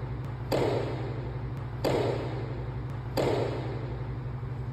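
Dance steps on a floor: three heavy thuds, evenly spaced a little over a second apart, each with a short ringing tail, over a steady low hum.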